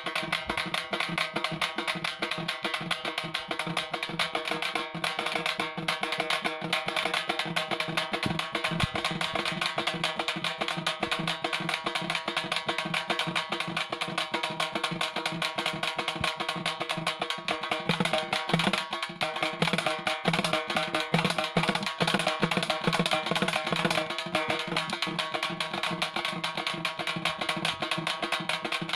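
Halgi frame drums struck with thin sticks in a fast, unbroken rhythm, the strokes packed close together, getting a little louder about two-thirds of the way through.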